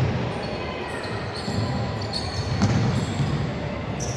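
Futsal game play on a wooden indoor court: the ball being kicked and players' footfalls echoing in a large hall, with two sharp kicks a little over two seconds in.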